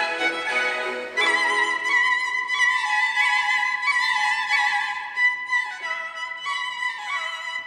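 Violin music with a slow melody: a long held note with vibrato enters about a second in, then steps down in pitch twice near the end.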